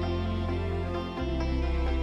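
Instrumental background music with sustained notes over a deep bass note that changes pitch about a second in.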